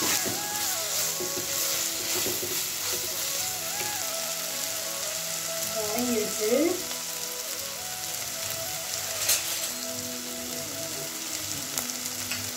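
Chopped onions sizzling in hot oil in a pot while a steel spoon stirs them, with a single sharp tap about nine seconds in.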